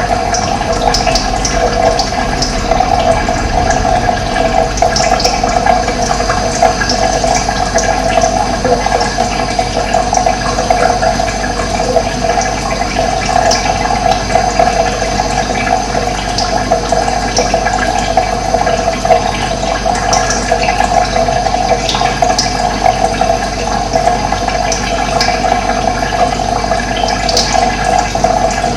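Running water flowing steadily, with short high bird chirps now and then.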